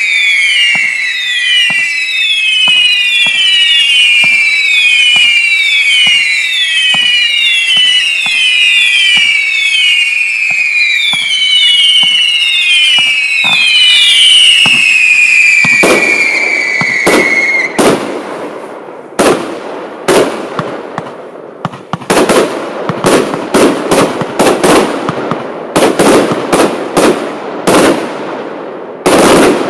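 Lesli 'The Undertaker' compound firework battery firing. For roughly the first sixteen seconds a quick run of whistling shots overlap, each a falling whistle. Then the whistles stop and a rapid string of sharp bangs and bursts follows, coming thicker near the end.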